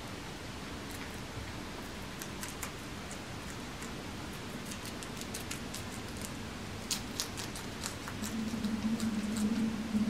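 Two guinea pigs chewing lettuce cores: quick, crisp crunching clicks, coming thickest about seven seconds in, over a steady hiss. A low hum comes in about eight seconds in.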